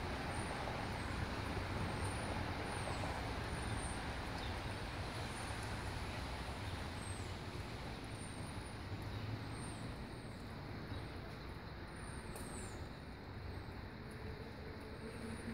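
Steady outdoor background noise, an even hiss with a low rumble beneath, with faint high chirps now and then.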